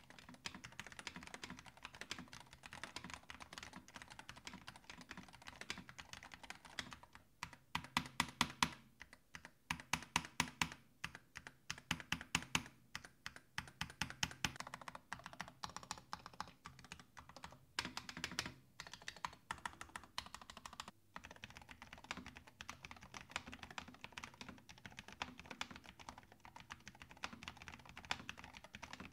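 Typing on a Glorious GMMK 3 HE keyboard with lubricated Glorious Fox HE magnetic switches and PBT keycaps, a deep, thocky keystroke sound. Fast, steady typing, with a stretch of slower, louder separate key strikes in the middle.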